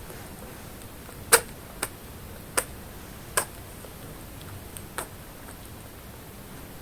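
A baby rabbit sneezing: about five tiny, sharp sneezes spread over four seconds, the first, about a second in, the loudest.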